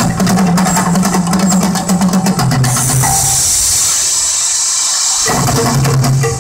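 Drum-heavy show soundtrack playing through loudspeakers. About two and a half seconds in, a steady loud hiss of gas flames takes over as the volcano's fire shoots up. After about two and a half seconds the drums come back.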